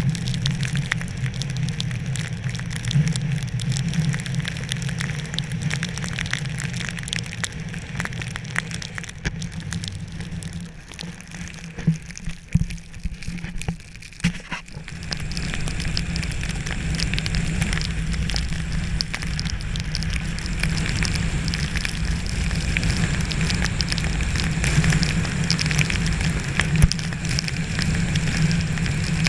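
Wintry precipitation pattering on surfaces, a dense crackle of small drops and pellets, over a low steady rumble. It thins out for a few seconds about twelve seconds in, then picks up again.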